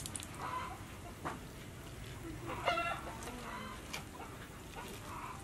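Poultry clucking in a few short, separate calls, with faint clicks between them.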